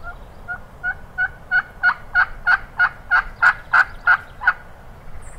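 Wild turkey hen yelping: a long series of about fourteen yelps, about three a second, each note breaking between two pitches and the series getting louder toward the end. It is the lonesome hen's plain yelp stepped up in volume and intensity to reach further, as she gets no answer from other turkeys.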